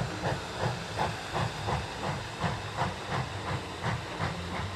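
Narrow-gauge steam locomotive No. 12, a Baldwin 4-6-0, chuffing steadily at about three exhaust beats a second while pulling its train.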